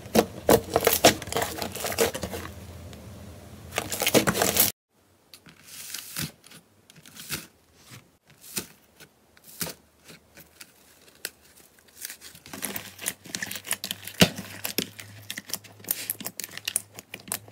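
Hands pressing and squishing slime: dense sticky crackling and popping of trapped air. It stops abruptly about five seconds in, then comes back as sparser clicks and squelches that grow dense again over the last few seconds.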